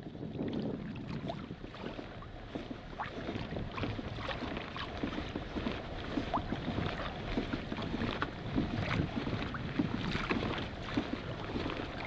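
Small waves lapping and slapping against the hull of a Hobie Revolution 13 kayak in irregular little splashes, with wind buffeting the microphone.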